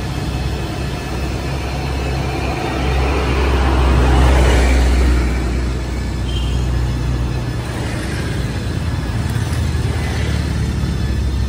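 Road traffic going by, with a large vehicle's low engine drone swelling to its loudest about four to five seconds in, then easing off.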